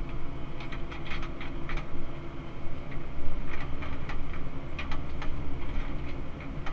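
Cat 308 CR mini excavator's diesel engine running steadily, heard from inside the cab, while the boom and bucket work. Clusters of short, sharp high clicks or squeaks come through over the engine at about one second in, around four seconds, and near five seconds.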